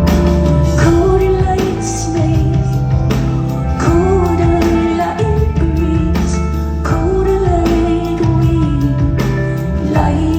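Live band playing a rock song: drums keep a steady beat under bass and keyboards, while a woman sings a melody in long, held notes.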